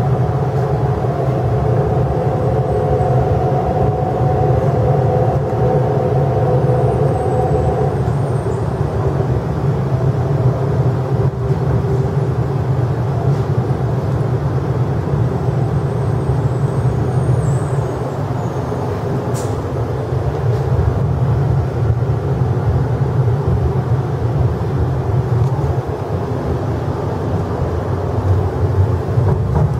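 Cabin sound of an MTR East Rail Line R-train under way. For the first eight seconds a whine of several steady tones from the traction motors rides over the running noise, then stops. After that there is only the steady low rumble of the wheels on the rails.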